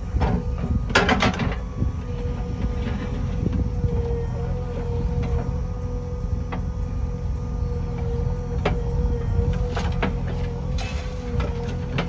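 JCB backhoe loader's diesel engine running steadily with a steady whine over it, while the backhoe bucket digs and swings, broken by several sharp clanks and clatters of stone and metal.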